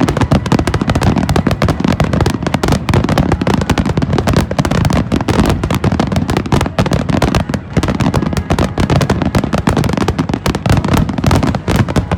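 A fireworks barrage: many shells bursting in rapid, unbroken succession, with crackling between the bangs.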